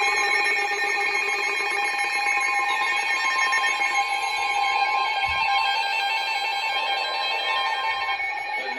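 Emergency Alert System alarm tones from weather radio receivers: several steady electronic tones sounding together, unbroken, with one of them dropping out shortly before the end.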